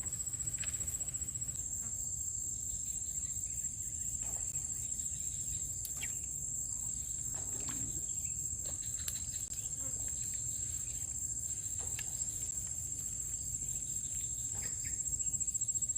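Insects chirring in one unbroken high-pitched trill, with a low rumble underneath and a few faint clicks.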